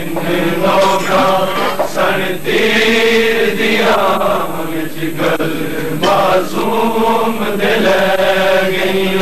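Men's voices chanting a Punjabi noha, a Shia lament for the martyrs, in short melodic phrases repeated without a break.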